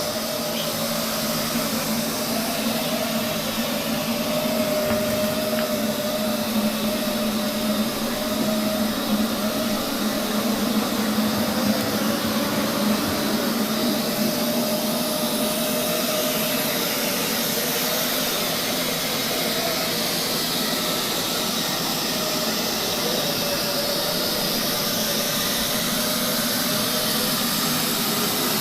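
Robot vacuum cleaner running: a steady motor whir with a slightly wavering whine over it.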